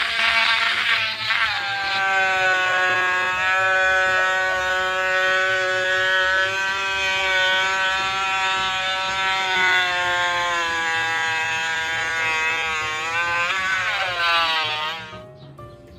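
A held buzzy tone with many overtones, wavering slightly in pitch, which cuts off about fifteen seconds in.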